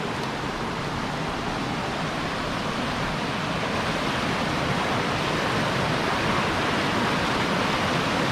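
Steady rush of flowing river water, growing slightly louder in the second half.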